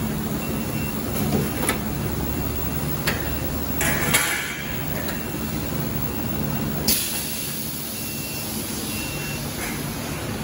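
A CNC tube laser cutting machine's automatic tube loader running after start-up: a steady motor hum with a few clanks, and bursts of air hiss about four seconds in and again from about seven seconds on. Faint short beeps repeat throughout.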